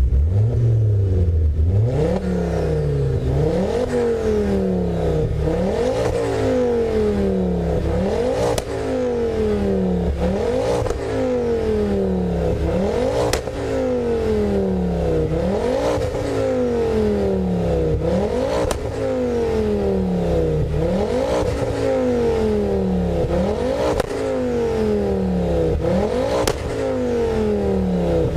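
Ford Focus RS Mk2's turbocharged five-cylinder engine revved in repeated blips while standing, about a dozen times, each a quick rise and slower fall in pitch, through a 3.5-inch downpipe with a 200-cell HJS cat, a centre-silencer replacement pipe and a KMS Thunderstorm rear silencer. A few sharp cracks come from the exhaust as the revs drop.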